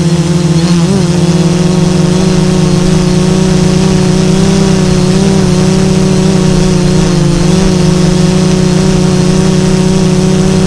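An FPV drone's electric motors and propellers, heard from on board as a loud, steady buzzing hum, with brief wobbles in pitch about a second in and again about three-quarters of the way through as the throttle shifts.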